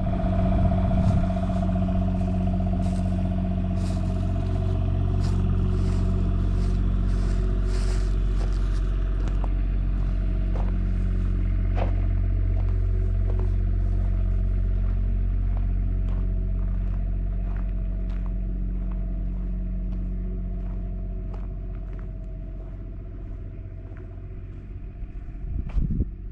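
Motorhome's onboard generator running with a steady low hum, charging the house batteries, growing somewhat fainter near the end. Footsteps on gravel tick over it.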